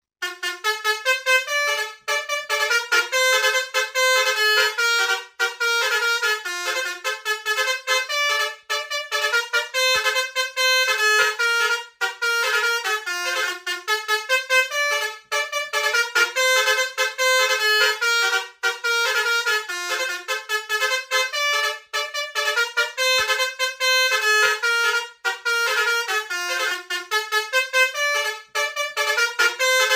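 Telolet bus horn, the multi-tone musical air horn of an Indonesian bus, playing a fast melodic tune of quickly changing notes almost without a break, with short pauses every few seconds.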